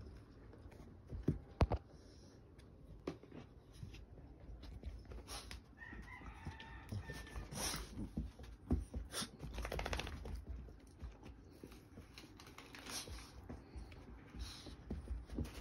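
A puppy playing with a toy on carpet: scattered knocks and scuffles, with a brief high squeaking tone about six seconds in and a short rapid rattly sound near ten seconds.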